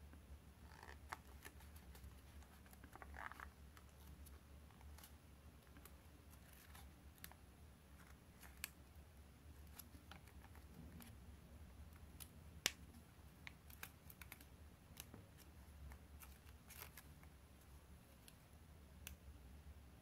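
Faint, scattered crinkles and sharp clicks of a square sheet of origami paper being folded and creased by hand, with one louder click a little past the middle.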